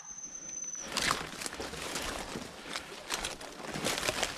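Footsteps crunching and brushing through dry bracken, twigs and leaf litter, an irregular crackling from about a second in. It opens with a thin, steady high whistle lasting about a second.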